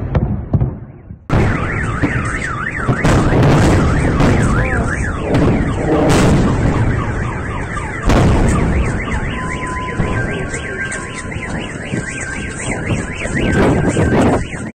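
Several car alarms wailing at once with rapidly warbling up-and-down tones, set off amid explosions and air-defence fire. A blast's rumble fades in the first second, and loud bangs come about six and eight seconds in.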